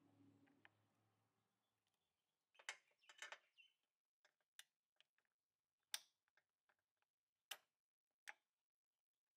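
Needle-nose pliers working a Honda Elite 50's front brake shoe return springs off the shoes and backing plate. A short burst of scraping clicks comes a little over two and a half seconds in, followed by a series of sharp clicks about a second apart.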